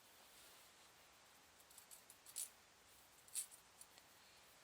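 Faint small metal-on-metal clicks and scraping of a hand tool working at a split pin in a dynamo spindle, with two sharper clicks about a second apart past the middle.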